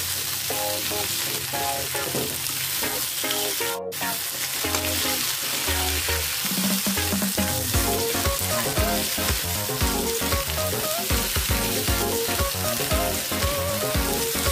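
Potato wedges sizzling as they fry in hot oil in an aluminium kadai, stirred around the pan with a metal spatula. Light background music plays over it.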